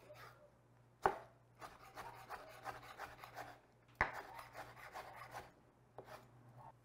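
Chef's knife dicing charred poblano peppers on a wooden cutting board: rapid soft taps of the blade against the board, with two sharper knocks about a second in and about four seconds in.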